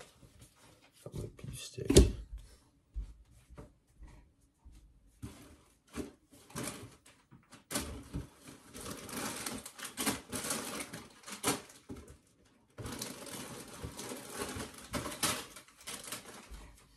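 Hands handling things in a kitchen: scattered clicks and knocks with one loud thump about two seconds in, then long stretches of crinkling and rustling of plastic snack packaging.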